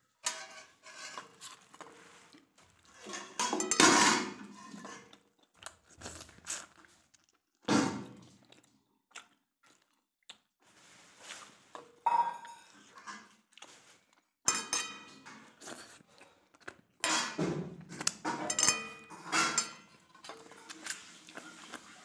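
Stainless steel bowls and dishes clinking and scraping in irregular knocks, several of them ringing briefly.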